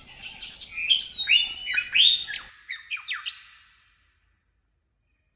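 A bird singing a quick run of loud, clear whistled notes that sweep sharply in pitch, with fainter birdsong behind. The background cuts out suddenly about two and a half seconds in, and the song fades away about a second later.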